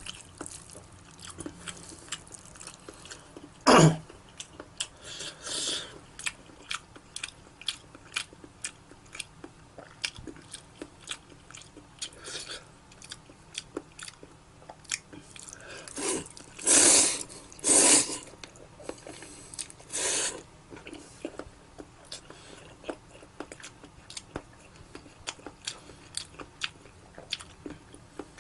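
Wet, sticky noodles being worked, with many soft clicks and squelches. Louder bursts come about four seconds in and twice around seventeen to eighteen seconds.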